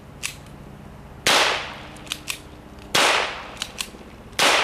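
Three sharp pistol shots of .22 long rifle shotshells, about a second and a half apart, each with a short echo. Between them come lighter clicks of the semi-automatic pistol's action being worked by hand, because the shotshells don't cycle it.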